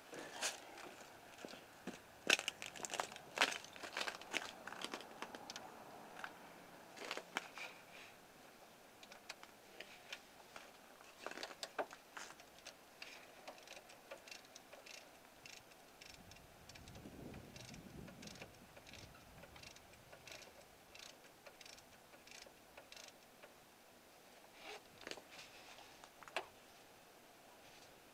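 Ratchet with a 10 mm socket working the bolts of an engine's thermostat housing: a run of faint, irregular metal clicks and clinks, densest in the first few seconds and again near the end.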